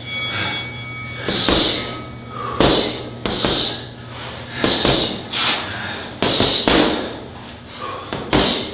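Strikes landing on a heavy bag, about eight hard hits at an uneven pace, roughly one a second.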